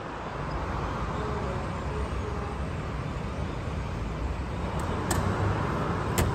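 Steady low rumble of traffic and station ambience around a light rail ticket vending machine, with a few sharp clicks near the end as the machine dispenses the ticket.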